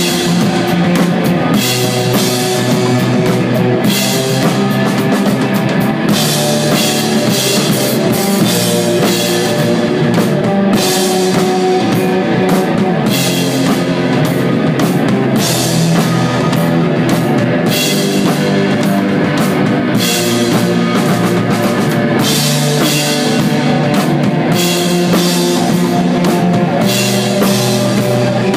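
Desert rock band playing live: a drum kit with ringing cymbals under electric guitars.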